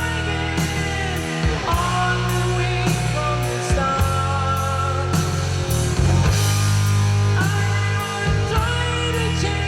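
Rock music with held bass notes, gliding guitar lines and steady cymbal strokes about twice a second, played through a 6C33C-B triode push-pull tube power amplifier.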